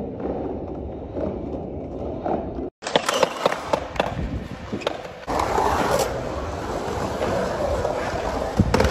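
Skateboard wheels rolling on concrete with a steady rumble. A few seconds in come several sharp clacks of the board hitting the ground, then a louder rumble of the wheels carving a concrete bowl, with a sharp knock near the end.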